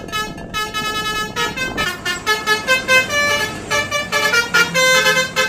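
Basuri 'telolet' multi-tone bus horn playing a quick tune of short, stepping notes.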